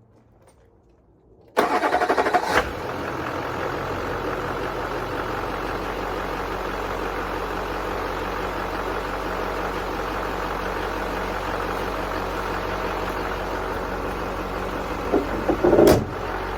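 LLY Duramax 6.6-litre V8 turbodiesel cranking and firing about a second and a half in, then settling into a steady idle after its fuel rail has been opened. A short louder burst comes near the end.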